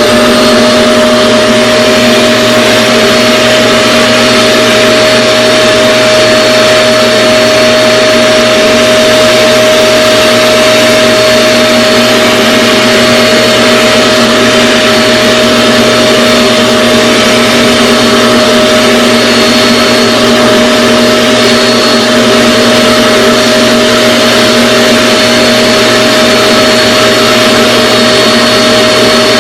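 RevAir reverse-air hair dryer running steadily at full power: a loud rush of suction and air with a constant motor whine.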